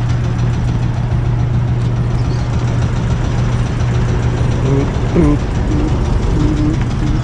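Motorized bangka's engine running with a steady low drone during a short boat crossing.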